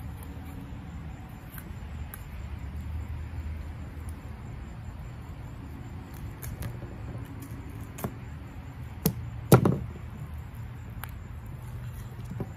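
Fillet knife working through a bonita on a plastic cutting board: faint scraping and clicks of the blade and fish, with a few sharp knocks on the board, the loudest about two-thirds of the way in. A steady low rumble runs underneath.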